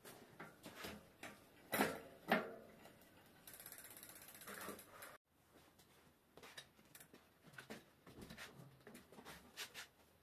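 Fat bike's rear freehub ratcheting as the wheel turns, with a couple of loud knocks from handling the bike about two seconds in. A fast, even clicking runs for under two seconds and cuts off, followed by scattered clicks and knocks.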